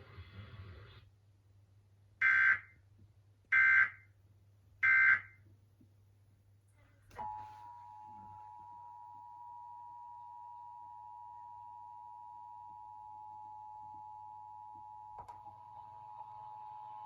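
Emergency Alert System end-of-message: three short bursts of warbling SAME digital data tones, a little over a second apart. About seven seconds in, the EAS two-tone attention signal (853 and 960 Hz) starts and holds steady.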